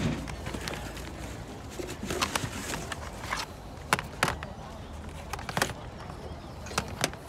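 Outdoor ambience with a steady low rumble and scattered light clicks and knocks, several close together in the middle and a couple near the end, from goods being handled and moved about.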